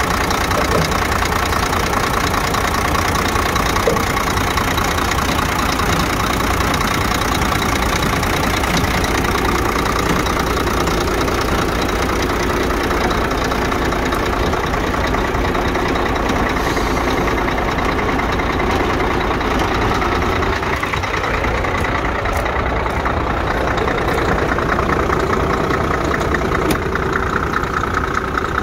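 Scania P114 380's 11-litre straight-six diesel idling steadily, heard up close at the open engine bay.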